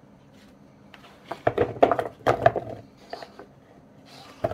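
Zucchini rounds sliding off a plastic cutting board and dropping into a large bowl: a cluster of soft knocks and clatters starting about a second in, with one more knock near the end.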